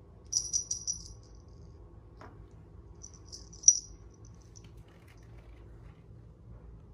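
A small high-pitched rattle jingling in short shakes: a quick run of about five jingles, then a second brief burst a few seconds later that ends in one sharp, louder jingle.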